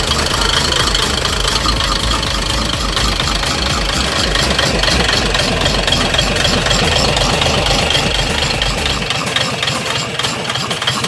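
Freshly overhauled Isuzu engine running at a steady idle with a fast, even rhythm; its deep low rumble drops away about nine seconds in.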